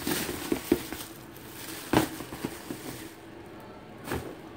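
Thin plastic carrier bag rustling and crinkling as it is handled, with a few sharp knocks, the loudest about two seconds in, over a faint steady hum.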